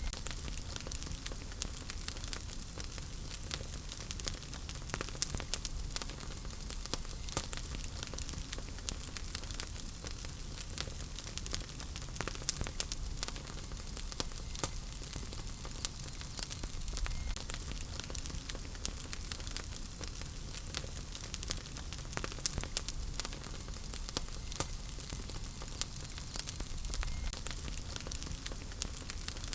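Wood fire burning in a fireplace, with a steady hiss, a low rumble and frequent sharp crackles and pops throughout.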